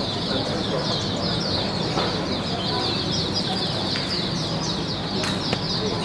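Many caged songbirds chirping and singing at once in a dense, steady chorus of rapid, high-pitched chirps and trills.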